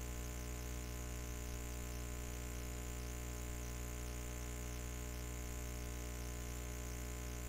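Steady low electrical hum with a buzzy edge, a deep hum with many evenly spaced overtones and a faint high hiss, unchanging throughout.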